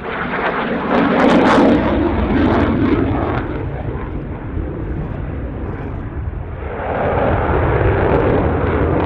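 Dassault Rafale's twin Snecma M88 turbofans in afterburner during a hard display manoeuvre: a loud jet roar, loudest about a second in, easing in the middle and building again near the end.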